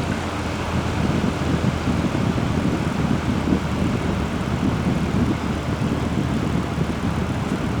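Vintage Air King box fan running on its low speed: a steady whoosh of moving air over a low motor hum.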